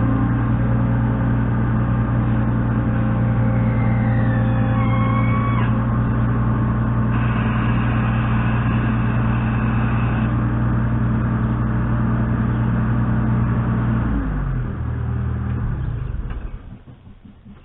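An engine runs steadily under load, with faint higher whines partway through. About 14 s in it steps down in pitch and winds down to a stop near the end.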